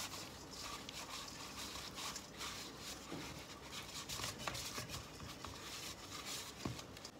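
Hand rubbing butter around the inside of a stainless steel bowl: a run of irregular rubbing and scraping strokes.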